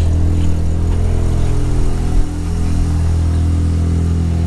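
Single-turbo Mazda RX-7 (FD) twin-rotor rotary engine idling steadily, with one dull thump about halfway through.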